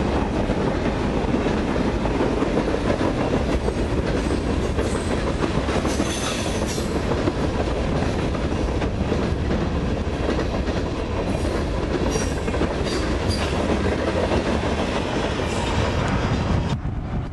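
Freight train of open-top hopper cars rolling past at speed: steady wheel-on-rail noise. It cuts off suddenly near the end.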